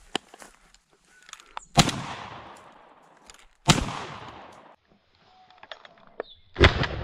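Three shotgun shots fired at thrushes in flight, about two seconds apart, each followed by a long fading echo.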